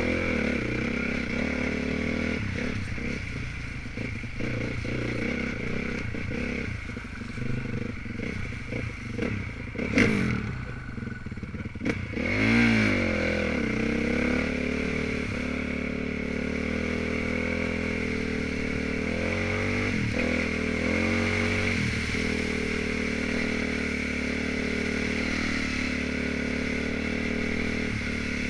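Dirt bike engine running under load, revs rising and falling, with a sharp knock about ten seconds in and a quick burst of revs just after.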